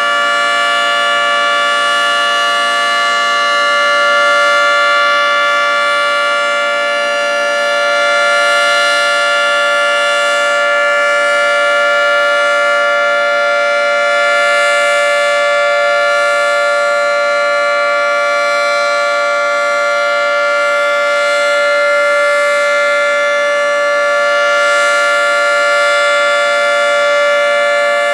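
Federal Signal 3T22A three-tone rotating tornado siren sounding a steady alert, a constant multi-tone chord with no rise or fall in pitch, rather than the hi-lo it normally gives. The loudness swells and fades gently about every ten seconds as the siren rotates.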